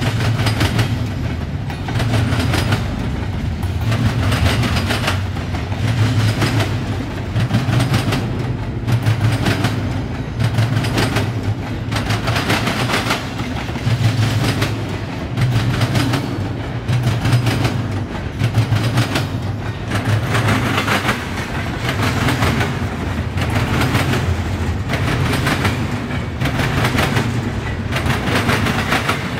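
Double-stack intermodal freight train rolling past, its wheels hammering over the rail crossing diamonds in a repeated heavy clatter.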